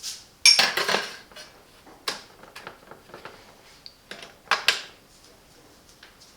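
Hard clinks and knocks of metal and plastic parts being handled at an espresso machine: a clattering cluster about half a second in, a few lighter single knocks, and a louder double knock about four and a half seconds in.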